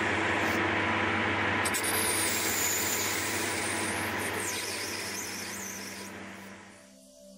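CZ300/1 metal lathe running with a steady hum while a ball-turning cutter is swung around a brass workpiece, the cut giving a wavering high-pitched squeal. The sound dies away near the end.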